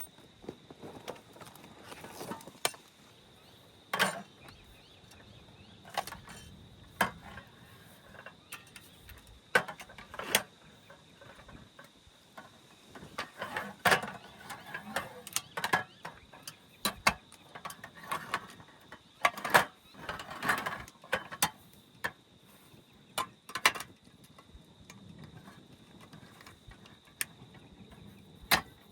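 Irregular clicks and knocks of things being handled, a few sharp ones louder than the rest, over a steady high thin drone like that of insects.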